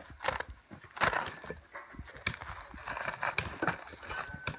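Cork harvesters' hatchets knocking into cork oak bark as the planks are cut and pried from the trunks: irregular sharp knocks from several workers, the loudest about a second in.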